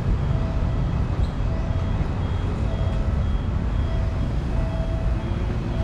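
Railway level crossing warning signal sounding, a repeating electronic two-note chime that comes round about once every 1.2 seconds, over a steady low rumble.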